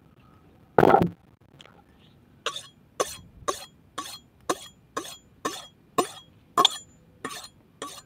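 A kitchen knife being sharpened by hand, its blade stroked against steel about twice a second: a dozen short, sharp metallic scrapes with a light ring. A brief loud burst comes about a second in, before the strokes.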